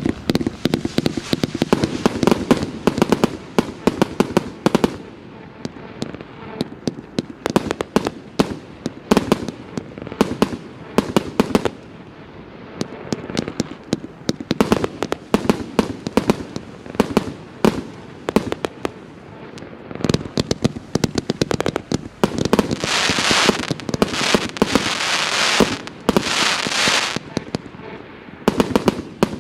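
157-shot consumer firework cake (0.8–1.2 inch calibres) firing a rapid, irregular volley of shots and bursts. Near the end there is a stretch of denser, hissing crackle.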